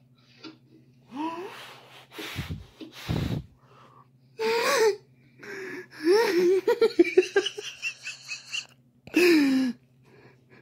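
People laughing in separate bursts with breathy gasps, including a quick run of short laughs about six to eight seconds in, over a steady low hum.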